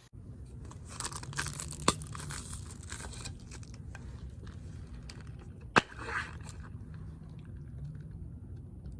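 Plastic crinkling and crackling as a bubble tea cup and straw are handled, with two sharp clicks, about two and six seconds in, over a faint steady hum.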